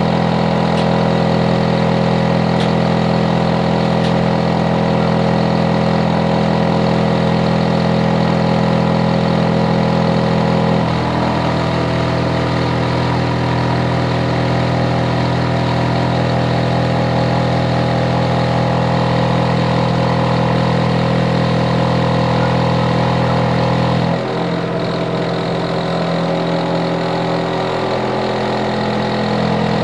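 Hitachi air conditioner outdoor unit running with a loud, steady mechanical hum made of several tones at once. The hum changes pitch abruptly about eleven seconds in and again about twenty-four seconds in, and is a little quieter after the second change.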